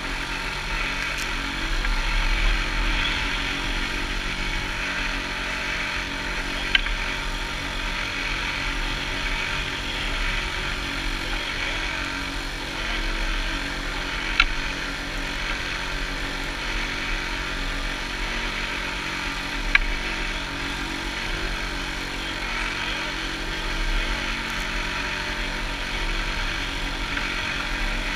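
Strong wind buffeting the camera microphone on a sailboat in choppy water, over a steady rush of water along the hull, with three sharp knocks spread through.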